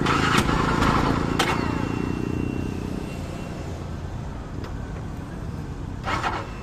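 Honda CB300 single-cylinder motorcycle engine running, its sound slowly dropping in level over the first few seconds. A few sharp clicks come over it.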